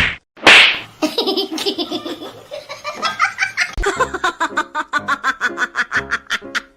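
A short loud burst of noise about half a second in, then a person laughing hard in a long run of quick, repeated bursts.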